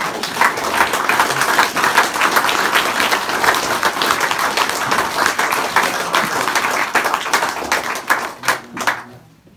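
An audience applauding: many hands clapping, thinning out to a few last claps near the end.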